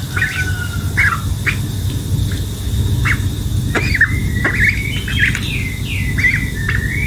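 Young domestic duck peeping: a rapid string of short, high calls, some sliding up or down in pitch, over a low rumbling noise.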